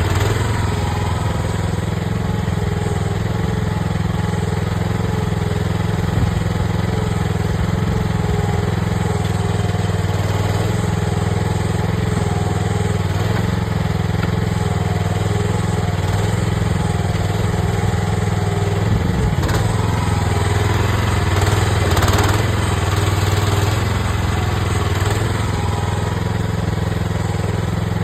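AGT mini excavator's small engine running steadily, with a slight swell in level about 22 seconds in.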